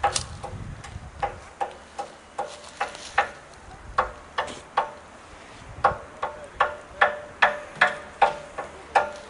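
A run of sharp knocks, two or three a second at uneven spacing, each with a brief ringing tone, like repeated hard strikes on wood or metal.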